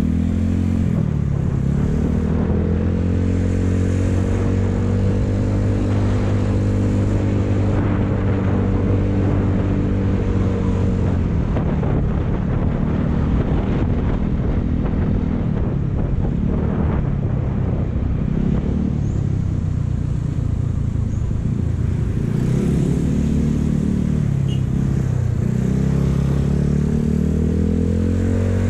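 Motorcycle engine running at a steady cruising speed, easing off early and picking up again near the end, with steady wind and road noise from riding.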